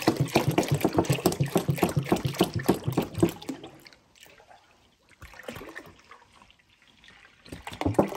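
Whole milk glugging out of a gallon jug into a pot in rapid, even pulses. The glugging stops about three and a half seconds in, and a short burst of sound comes near the end.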